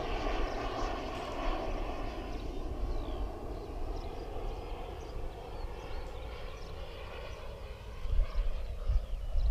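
Small JetCat turbine of a Krill Avanti S model jet running in flight, a distant jet rush that slowly fades as the plane moves away. About eight seconds in, wind rumble on the microphone rises.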